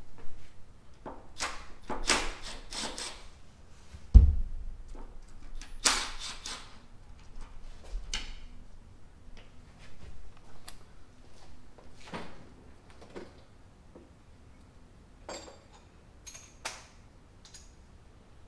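Scattered knocks, clicks and rustling from work being done on a car, with one heavy thump about four seconds in.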